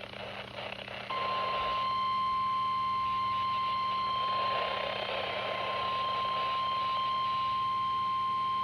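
NOAA Weather Radio 1050 Hz warning alarm tone, a single steady pitch that comes on about a second in and holds, over radio static and a low hum. It is the signal that a warning broadcast is about to follow.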